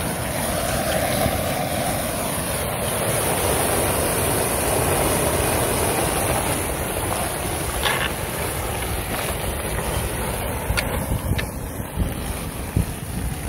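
Floodwater swirling down a freshly unclogged street storm drain, a steady rushing with a few short knocks, with wind buffeting the microphone.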